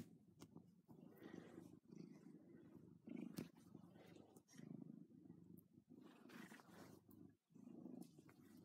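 Domestic cat purring close up, faint, the low rumble rising and falling in pulses of about a second with each breath. A few soft knocks sound near the start and after about three seconds.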